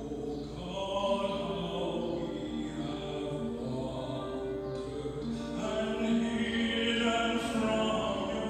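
A tenor singing a slow hymn, with sustained notes and vibrato, accompanied by bowed cello and piano.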